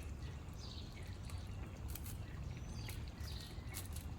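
Faint short bird chirps every second or two over a steady low background rumble.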